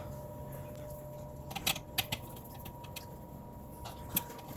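A few short, sharp clicks and taps of small parts and wires being handled during the doorbell wiring, over a faint steady hum.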